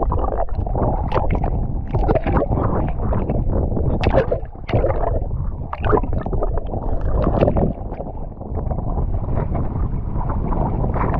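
Water sloshing and gurgling around a small boat, with wind rumbling on the microphone and scattered sharp knocks and splashes.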